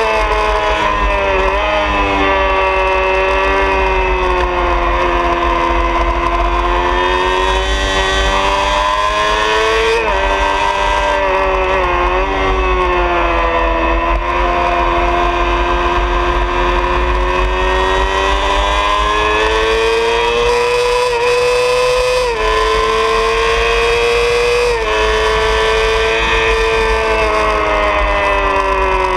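Honda CBR600RR's inline-four engine running at high revs on a circuit lap. Its pitch sinks and climbs through the corners, with sudden breaks in pitch about six times as gears change, over steady wind rush on the bike-mounted microphone.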